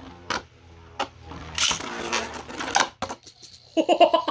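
Spinning Beyblade tops in a plastic stadium: a few sharp clacks, then a burst of whirring and scraping as the tops clash, ending in a clack. A brief voice is heard near the end.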